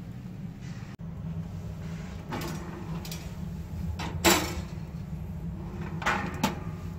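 A steel knife blade is laid on the wire rack of a small toaster oven with a sharp metallic knock, after scrapes of handling. Near the end the oven's glass door is swung shut with two knocks. A steady low hum runs underneath.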